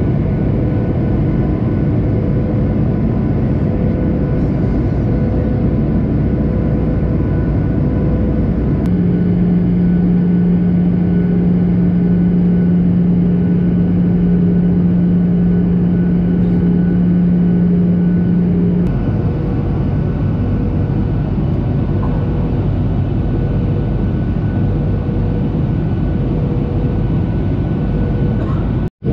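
Steady engine and airflow noise inside a jet airliner's cabin in flight, heard from a window seat. A low hum under it shifts abruptly twice where the recording is cut, and the sound drops out for an instant near the end.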